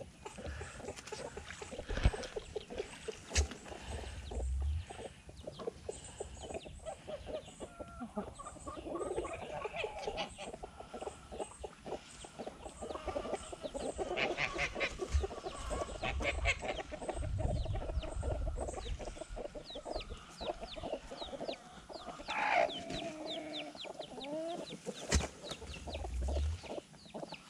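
A flock of hens clucking steadily around the microphone, with a falling squawk near the end. A few sharp clicks and some low rumbles come through as well.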